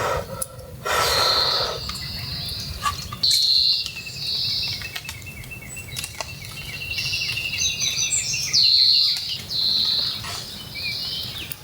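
Wild songbirds singing: repeated clear high whistled phrases and, in the middle, a long trill of rapid notes, over a steady low background rumble.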